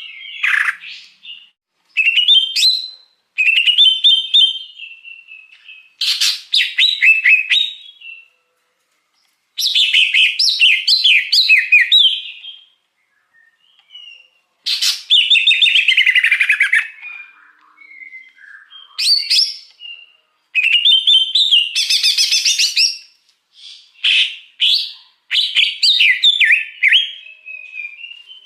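Green leafbird (cucak hijau) singing: a string of fast, varied chirps and whistled phrases, each run lasting one to three seconds, separated by short pauses.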